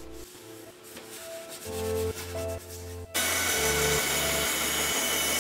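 Bandsaw with a 1/4-inch blade cutting through a thick wooden board. It starts suddenly about three seconds in as a steady hiss. Soft background music plays under it.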